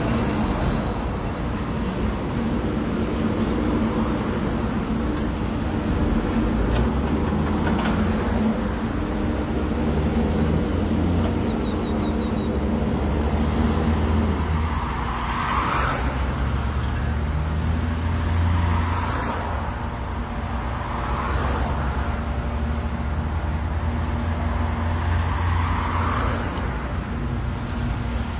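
Road traffic passing close by on a city street. A truck engine runs low and steady through the first half, then cars go past one after another with a tyre swish every few seconds.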